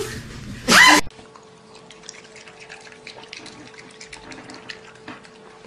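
A brief loud exclamation from a person's voice, then, after a cut, a raccoon chewing grapes: faint wet clicks and smacks over a steady hum.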